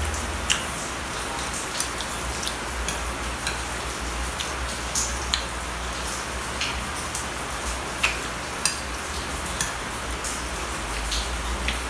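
Steady rain hiss, with scattered short sharp clicks and taps from a spoon on a glass plate and from chewing close to the microphone.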